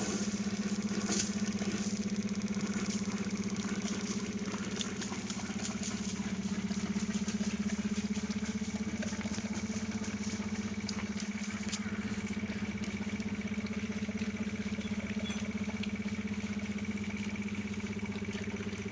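A motor running steadily with a constant low hum and a few faint ticks.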